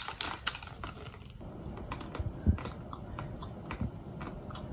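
Foil wrapper crinkling as a chocolate is unwrapped, then soft chewing with a few faint clicks.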